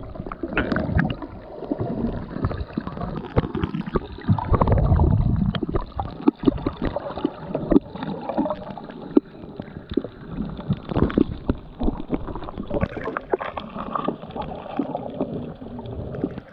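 Muffled underwater sound with the recording device below the surface: gurgling water movement with frequent small clicks and crackles and slow low surges.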